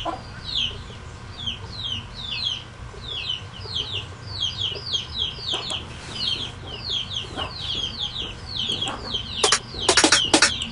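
Birds chirping in the background: a long, fast series of short, high chirps, each falling in pitch, over a low steady hum. A few sharp knocks come near the end.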